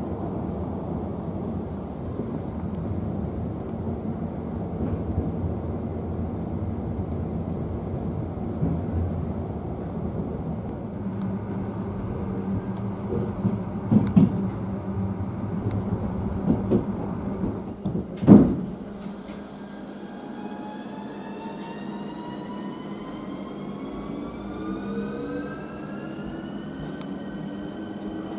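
Steady low rumble of a passenger train running, heard from inside a coach, with a few knocks. A sharp bang comes about 18 s in, then the whine of an electric train's traction motors rises steadily in pitch as it pulls away and levels off near the end.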